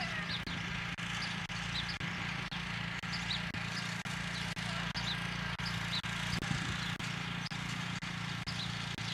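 Riding lawnmower engine running at a steady low hum, with faint short high chirps now and then.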